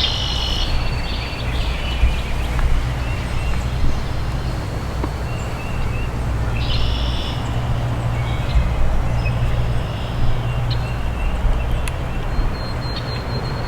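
Wind buffeting the microphone in a steady low rumble, with a songbird singing a short high phrase at the start, about halfway through, and again at the end.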